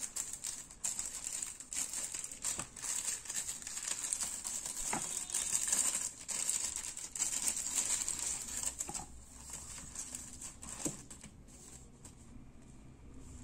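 Clear plastic packaging crinkling and rustling in the hands as small accessory packets are pulled open and handled, with scattered crackles, quieter in the last couple of seconds.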